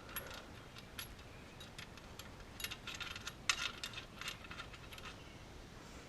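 Irregular light metallic clinks and rattles of hand tools and hardware being handled, with small clusters about two and a half and three and a half seconds in.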